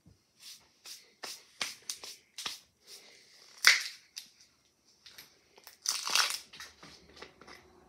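Handling noise at a kitchen counter: a string of small clicks and rustles as containers are picked up and handled, with a louder crackly rustle about three and a half seconds in and a longer one around six seconds in.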